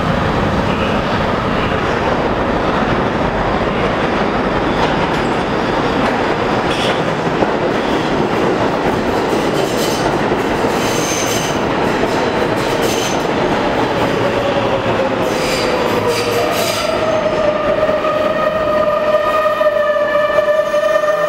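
Kawasaki R142A subway train running into a station: a loud, steady rumble and rattle of wheels on rail. About three-quarters of the way through, as it slows, a steady high whine with several tones sets in.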